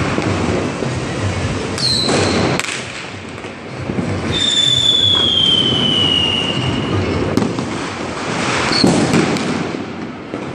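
Diwali firecrackers and fireworks going off in a steady crackle and hiss, with a few sharp cracks. A short high whistle comes about two seconds in, and a longer whistle slowly falls in pitch from about four to seven seconds in.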